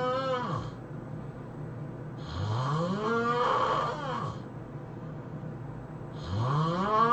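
A person snoring loudly, with each long snore rising steeply in pitch and coming about every four seconds. One snore tails off at the start, a full one comes about two seconds in, and another begins near the end.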